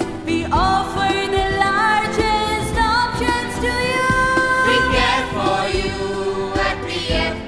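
Background music with a sung melody over an instrumental backing.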